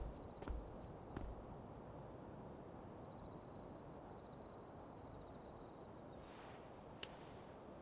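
Faint night ambience of crickets chirping in fast high trills that stop and start, over a low hiss, with a few soft clicks or knocks in between.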